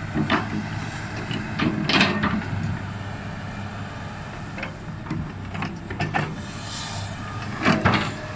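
Komatsu PC200 excavator's diesel engine running steadily while its bucket scrapes and knocks through loose soil, levelling it. Several short scraping clatters break the engine sound, loudest about two seconds in and near the end.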